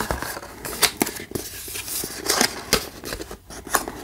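Hands handling and turning a disc case: scattered light clicks, taps and rubbing of the plastic case under the fingers.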